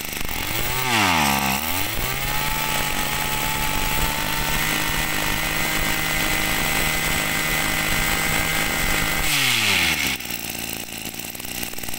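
Small two-stroke engine of an Echo 200 (Kioritz) 20cc brush cutter on a test run. It blips up and dips about a second in, then is held at high revs steadily for about seven seconds before being throttled back to idle near the end.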